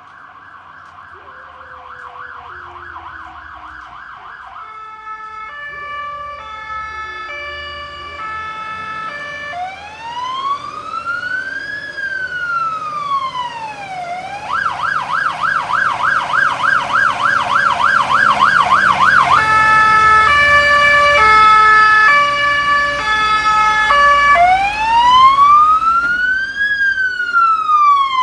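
Fire engine's electronic siren on an emergency run, cycling through a fast warble, a high-low two-tone and a slow rising-and-falling wail, twice over. It grows steadily louder as the vehicle approaches and is very loud in the second half.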